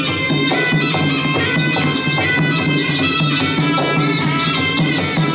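Traditional Kun Khmer fight music: a shrill reed wind instrument plays a continuous, wavering melody over a steady beat of hand drums.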